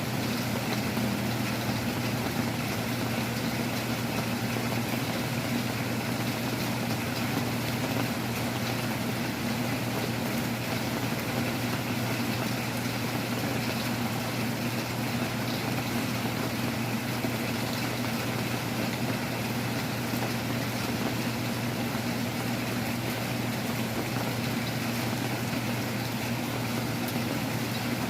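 Heavy rain falling steadily, an even rushing noise with a steady low hum underneath.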